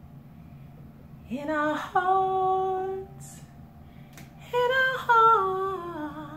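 A woman's solo singing voice in two long phrases with no clear words: a swoop up into a held note, then after a short pause a phrase that steps down in pitch.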